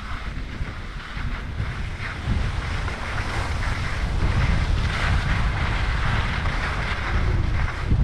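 Wind buffeting the microphone of a helmet-mounted GoPro while skiing downhill, a low rumble under the hiss of skis sliding over snow. It gets louder about two seconds in.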